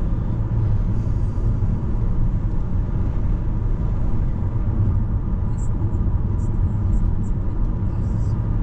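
Steady road noise from a moving car heard inside the cabin: a low, even rumble of tyres and engine at cruising speed.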